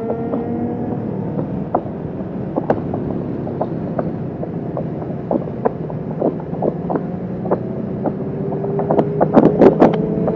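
Kawasaki Vulcan S 650's parallel-twin engine running under way, its pitch climbing slowly as the bike accelerates. Sharp clicks and knocks from wind buffeting on the microphone come throughout, with a dense loud cluster of them near the end.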